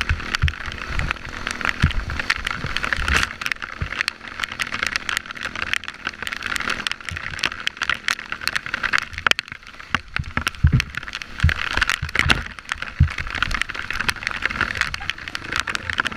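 Dirt bike running as it rides a rutted mud trail, with many knocks and rattles from the bike jolting over the rough ground.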